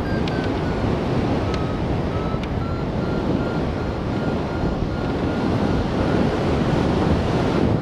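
Wind rushing over the microphone of a hang glider in flight, with a variometer beeping steadily in short, evenly spaced pips. The beep pitch slides slowly down and then rises again near the end, the vario signalling lift that weakens and then strengthens.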